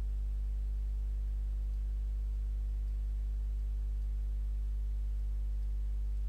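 Steady low electrical hum with evenly spaced overtones that does not change throughout.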